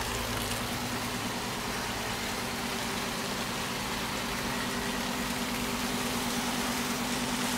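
A fishing boat's engine running steadily with an even hum, over a constant hiss.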